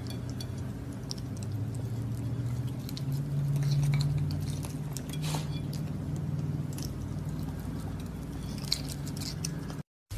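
A raccoon eating from a plate of whipped cream and marshmallows: scattered small clicks and clinks of chewing and of its paws on the plate, over a low steady hum. The sound stops abruptly near the end.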